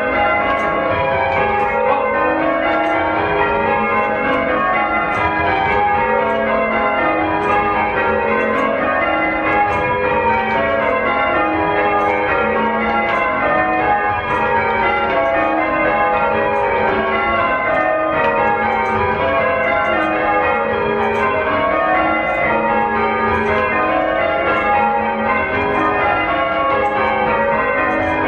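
English church bells rung in change ringing: an unbroken run of overlapping strikes that cascade down in pitch through the ring again and again, each bell's tone lingering under the next.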